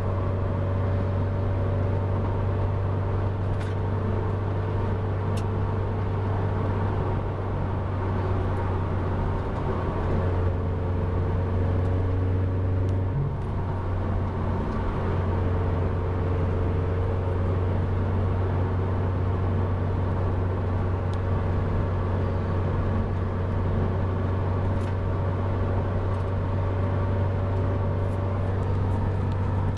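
Steady low drone of a 2013 Scion FR-S's flat-four boxer engine through an SRT header-back exhaust, heard inside the closed cabin while cruising at about 3,000 rpm, over tyre and road noise.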